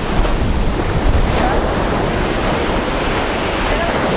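Surf washing on a beach, a steady rushing noise, with wind rumbling on the microphone.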